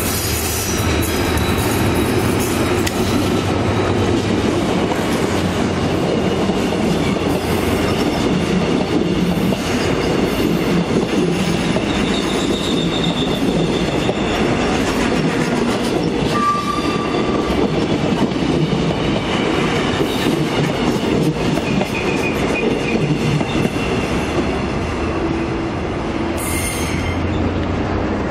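Korail 7400-series diesel-electric locomotive No. 7448 passing close with its engine running, followed by a long rake of Mugunghwa passenger coaches rolling by. The coaches' wheels clack over the rail joints, with brief wheel squeals here and there as the train takes the curve.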